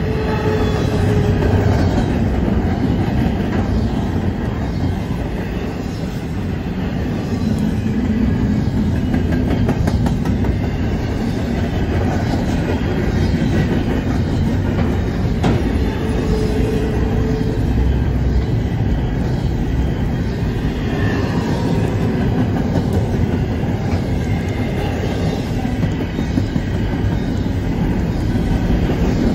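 Double-stack intermodal container train's well cars rolling past on a curve: a steady heavy rumble and wheel clatter, with short faint wheel squeals now and then.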